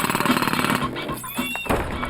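Jackhammer hammering in rapid, even blows over cartoon background music, with a short high whistle-like tone about one and a half seconds in.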